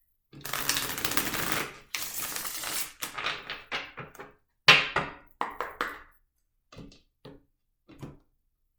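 A tarot deck being shuffled by hand: two long, dense riffles of cards in the first three seconds, then a run of sharper card snaps and taps that thin out and fade.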